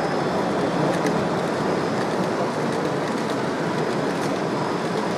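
Model freight train of tank wagons rolling past on a layout: a steady rolling rumble of wheels on the track, with a few faint clicks.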